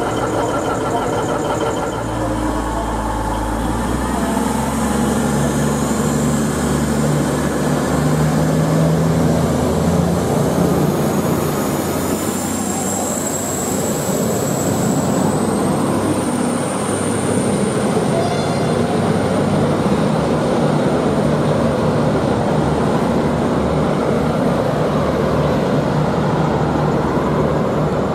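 V/Line VLocity diesel multiple unit moving through the platform, its underfloor diesel engines running under load. The engine note rises a few seconds in, and a high whine climbs in pitch around the middle.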